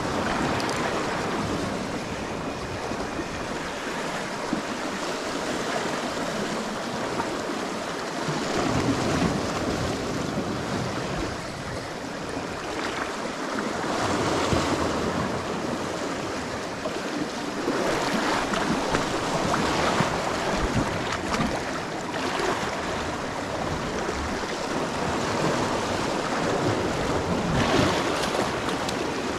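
Sea waves washing and splashing against a rocky shoreline, swelling louder every few seconds as each surge breaks over the rocks.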